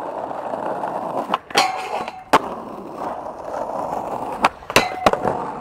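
Skateboard rolling on asphalt with several sharp clacks of the board: two in the first half, then three in quick succession near the end as the skater goes for the metal rail.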